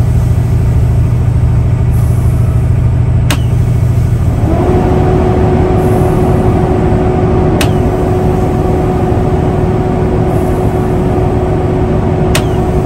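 Semi truck diesel engine idling, then revved about four seconds in and held at raised speed with a steady whine, keeping the air compressor working hard. Sharp clicks come about every four seconds as the trailer brake hand valve is pumped, repeated brake applications that make the trailer's self-adjusting brakes take up slack.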